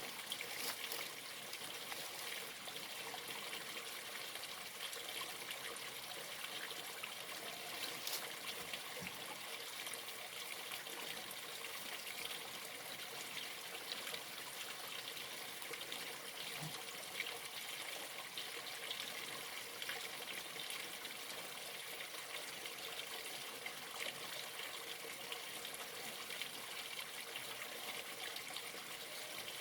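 Stream water trickling and flowing steadily.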